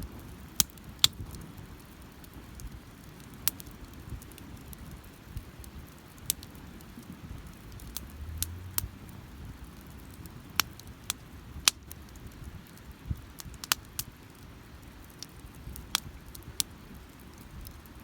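Wood campfire crackling, with sharp, irregular pops every second or so over a low rumble.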